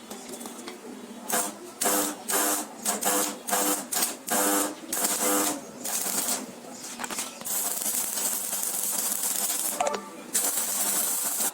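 Power tool run in a string of short bursts, about a dozen in four seconds, each with a steady motor tone, followed by a longer steady hiss that breaks off briefly just before the end.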